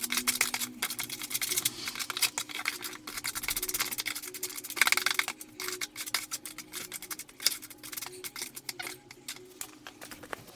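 A steel trowel scraping and tapping as cement is worked into cracks in a concrete wall: quick, irregular scrapes and clicks, with faint background music underneath.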